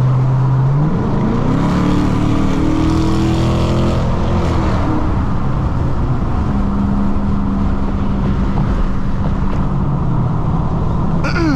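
Dodge Charger R/T's 5.7-litre HEMI V8 accelerating: steady engine note, then about a second in the pitch climbs for a few seconds before easing off and settling into a steady cruise.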